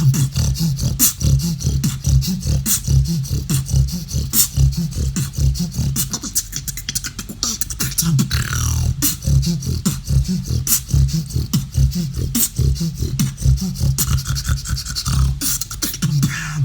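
Solo beatboxing: a deep, pulsing snore bass, an inward-breathed bass rumble, under a steady beat of sharp clicks and snare-like hits, with a gliding vocal effect about eight seconds in.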